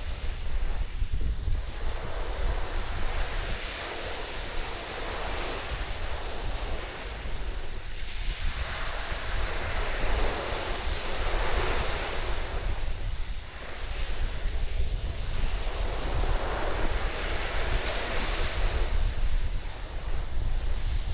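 Surf breaking and washing up the sand in slow surges that rise and fade every few seconds, with strong wind buffeting the microphone as a steady low rumble underneath.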